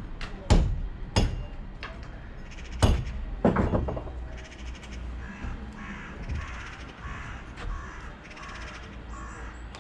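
Several sharp knocks of rubble stone being handled and struck in the first four seconds, then repeated bird calls through the second half.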